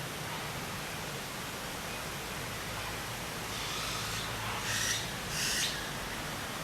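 Steady rushing hiss of outdoor nature ambience, with two short, high-pitched sounds just before five seconds in and again about half a second later.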